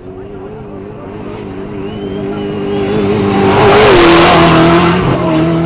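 Off-road desert race truck passing close at speed. Its engine grows louder as it approaches, peaks about four seconds in with a rush of noise, and drops in pitch as it goes by.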